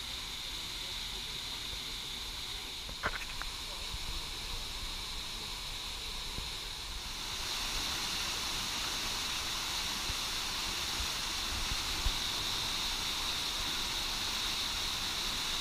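Artificial waterfall pouring into a rocky pool, a steady rushing hiss that comes in about seven seconds in over quieter open-air background noise. A single short click sounds about three seconds in.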